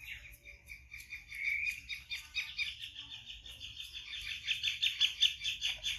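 Small bird chirping in a fast run of quick repeated notes, about five a second, louder in the second half.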